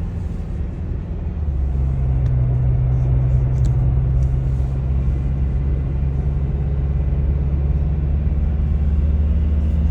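Car engine and road noise heard from inside the cabin while driving: a steady low drone whose note shifts about two seconds in.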